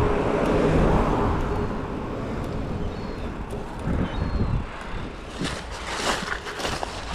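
Road traffic: a vehicle passing, loudest about a second in and then fading, with a few short rustles or knocks near the end.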